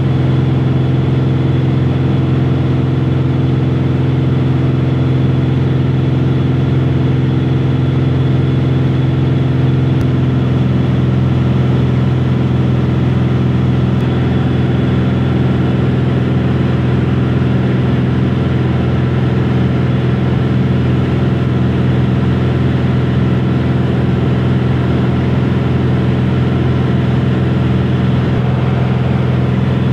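Passenger airplane cabin in flight: a steady engine drone with a strong low hum.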